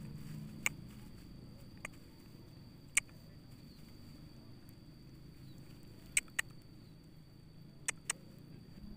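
Quiet rice-paddy ambience with a steady high-pitched whine and a low rumble, broken by about seven sharp, isolated clicks, two close pairs of them in the second half.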